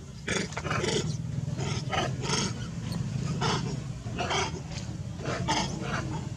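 Long-tailed macaques giving a series of about ten short, harsh calls at uneven intervals.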